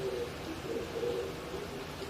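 Oriental turtle dove (mountain pigeon) cooing, a low soft phrase of several notes repeated, over a steady background hiss.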